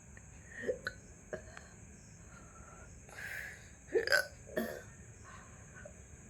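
A person hiccuping. A few short, sharp hiccups come about a second in, then a breath in a little after three seconds, then a louder cluster of hiccups around four seconds in.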